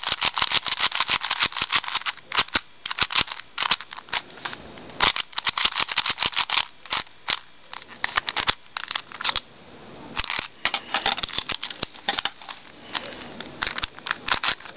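A new black-bodied 3x3 Slick puzzle cube being turned rapidly by hand, its plastic layers clicking and clacking in quick runs, with a brief pause about ten seconds in. The cube turns very smoothly.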